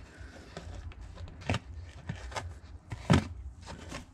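Handling noise from gloved hands moving a small black food dish: a few light knocks and rustles, the loudest about three seconds in, over a low steady hum.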